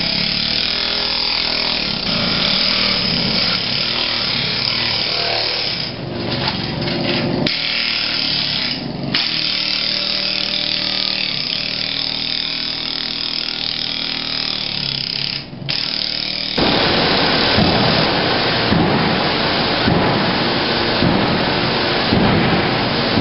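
Power floor scraper chipping vinyl tile off a concrete floor: a steady motor and blade chatter with the crack of lifting tile, pausing briefly a few times. About two-thirds of the way through it cuts off and gives way to a louder, even rushing noise like heavy rain.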